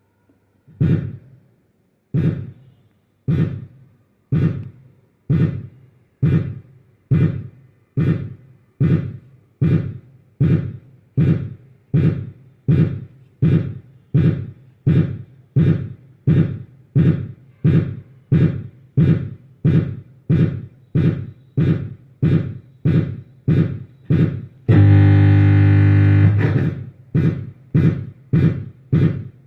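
Roland TD-07 electronic drum module sounding one drum voice over and over, about two hits a second, each a low thud with a short decaying tone. About 25 seconds in, a loud steady tone holds for about a second and a half, then the hits resume.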